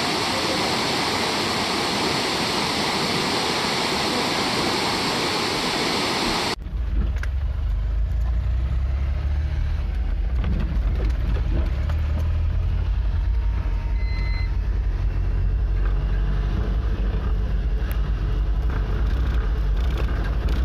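A waterfall's rushing water, a dense steady hiss. About six seconds in it cuts off abruptly, and a motor vehicle's steady low engine and road rumble takes over, heard from inside the cabin.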